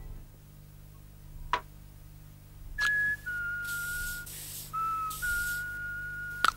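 A man whistling a tune in long held notes with some breath in them, starting about three seconds in. A sharp click comes about a second and a half in and another near the end.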